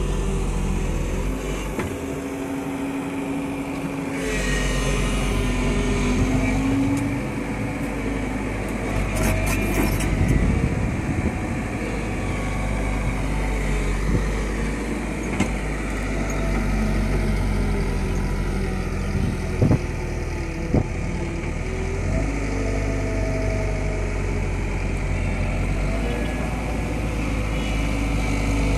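JCB JS140 tracked excavator's diesel engine running under load as it digs, its note rising and falling with the hydraulic work of the boom and bucket. Two sharp knocks come about two-thirds of the way through.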